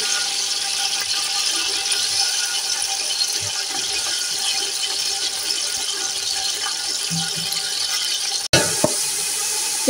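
Raw chicken pieces sizzling steadily as they start to fry in hot oil, with a momentary break about eight and a half seconds in.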